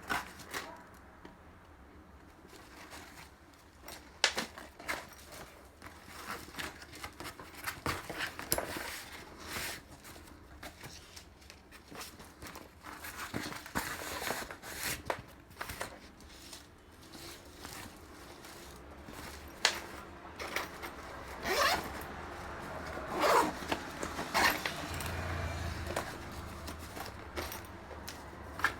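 Zipper on a Fjällräven Kånken backpack being pulled, among scattered short clicks and rustling as the bag is handled. The longest, loudest zip strokes come about two-thirds of the way through.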